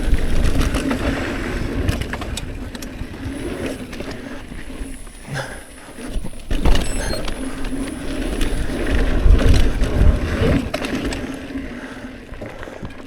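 Hardtail mountain bike ridden along a dirt trail: tyres on dirt under a heavy low rumble, with frequent knocks and rattles as the bike goes over bumps.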